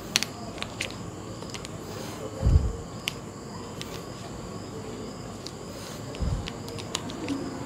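Quiet room background with a steady high-pitched whine, scattered faint clicks, and two dull low thumps about four seconds apart.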